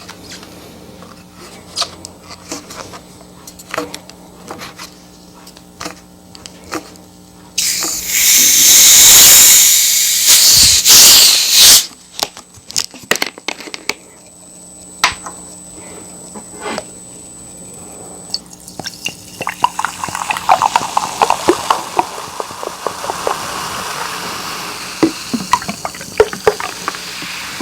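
Kitchen sounds: scattered clinks and knocks of cookware, then water pouring loudly into a sink for about four seconds, more clinks, and near the end a steady hiss with crackling.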